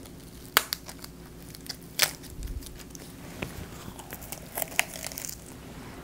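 Close-up eating sounds: crisp crunching as a lettuce wrap (ssam) of pork bulgogi, rice and raw green chili is bitten and chewed. Two sharp crunches come about half a second and two seconds in, followed by a run of smaller crackles.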